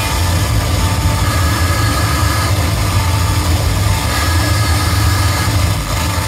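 Harsh noise music played live on electronics: a loud, unbroken wall of noise with a heavy low rumble and faint short high tones that come and go.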